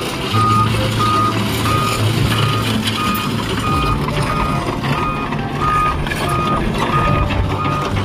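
Volvo crawler excavator's travel alarm beeping steadily, a little under twice a second, as the machine tracks along, over the low steady running of its diesel engine.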